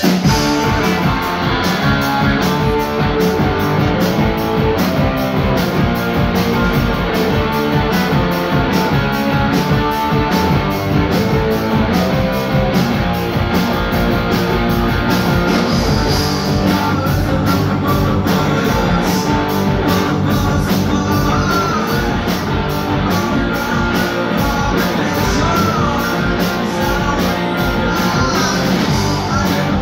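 Live rock band playing loud and full: distorted electric guitars, bass and a drum kit kicking in together at the start with a steady driving beat. A singer's voice comes in about halfway through.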